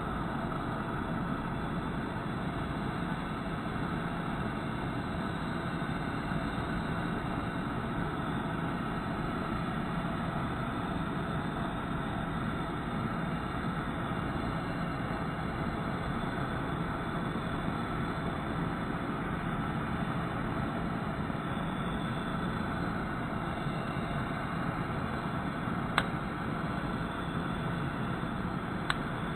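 Handheld gas burner flame (rated to 1300 °C) burning with a steady hiss, broken by two sharp clicks near the end.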